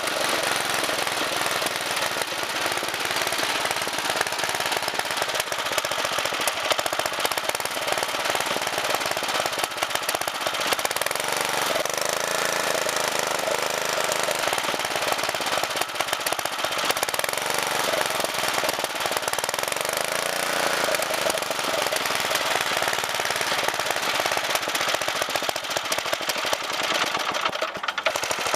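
Murray riding lawn mower engine running warm with a rapid, even clatter while its governor linkage is being bent to set the low idle, because the engine will not idle right once warmed up. Its speed sags and recovers twice, about twelve and twenty seconds in.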